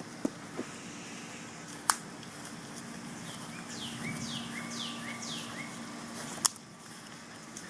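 A bird sings a quick run of about five falling whistled notes in the middle, over steady outdoor background with a low hum. A few sharp clicks or knocks stand out, the loudest about two seconds in and again near the end.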